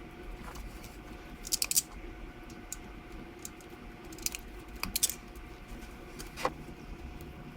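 Hand crimping tool and wire snips at work on a fuel injector plug's wires: a few short, sharp clicks and snips, bunched about a second and a half in and again about five seconds in.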